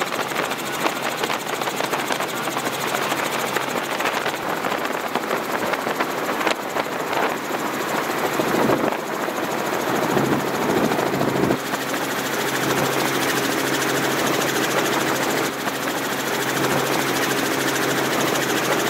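Loud, steady engine noise with a rapid, rhythmic chatter running through it; a steady hum comes in about twelve seconds in.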